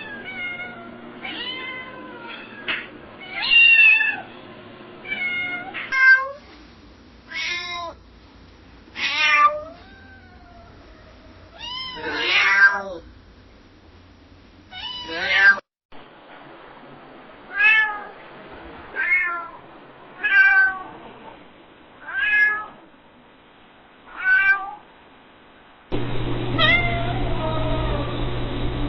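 Domestic cat meowing again and again, in several different recordings: short meows a second or two apart, with some longer drawn-out ones that rise and fall in pitch. A steady low hum sits under the last meow, near the end.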